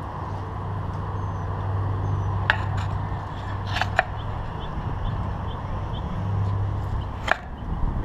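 Steady low engine drone, with several sharp clicks and faint, short high chirps.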